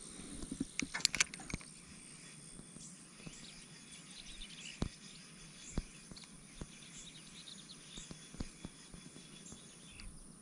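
Quiet pond-bank ambience with faint insect and bird chirping, and light clicks from a spinning rod and reel being handled: a cluster of sharp clicks about a second in, then a few single ticks.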